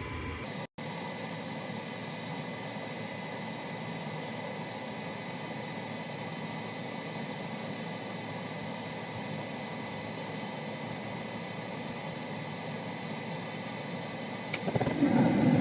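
Furnace running steadily on a call for heat, a constant hum with faint steady whines. Near the end a louder low rumbling noise starts.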